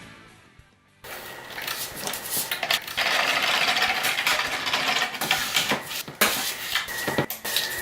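Background music fades out, then workshop handling noise: a run of clicks and clatter, with a steady hiss from about three seconds in.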